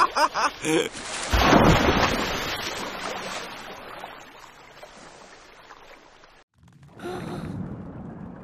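A big water splash about a second and a half in: a sudden rush of noise that fades slowly over several seconds. After a brief silence near the end, a softer steady underwater hiss begins.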